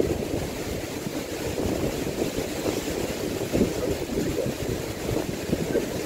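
Strong typhoon wind buffeting the microphone: a steady low rushing noise that swells and falls in gusts.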